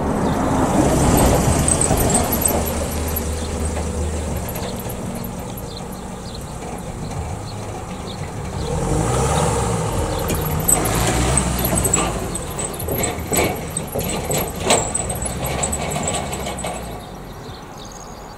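A flatbed pickup truck drives past and crosses a double-track railway level crossing, its engine and tyres loudest as it goes by. A run of sharp knocks follows as its wheels and rattling load bed bump over the rails.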